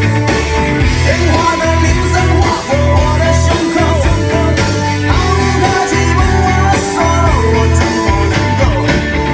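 Rock song with singing and guitar over a strong, pulsing bass beat, played back through a car's Dynaudio speaker system.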